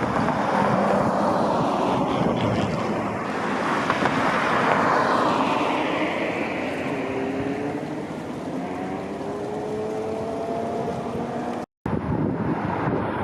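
Road traffic: a vehicle rushes past, and then an engine note rises as a vehicle speeds up. The sound drops out for an instant near the end.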